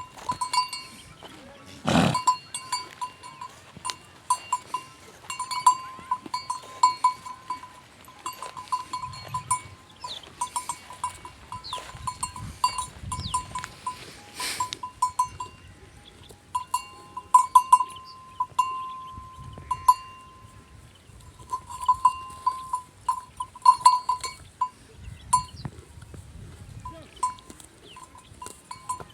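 Livestock bell clinking irregularly as an animal moves, a quick run of short rings on one pitch, now sparse, now in quick clusters, with a brief held ring past the middle. Two louder sharp knocks stand out, about two seconds in and near the middle.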